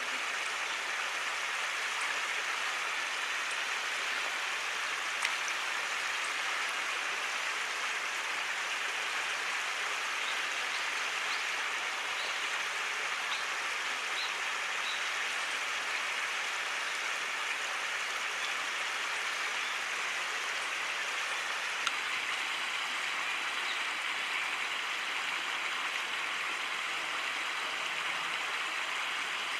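Steady rushing of a stream's flowing water, with a few faint, short high notes around the middle.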